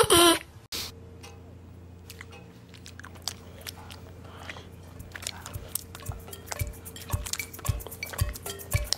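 A cartoon mouse nibbling cheese: quick, small crunchy bites and clicks over a low steady hum, coming faster and louder toward the end. It is preceded by the last half second of a loud, high yell that cuts off abruptly.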